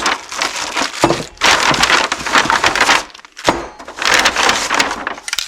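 Packaging rustling and crinkling as the new hydraulic filters are handled, in three noisy bursts of a second or more each.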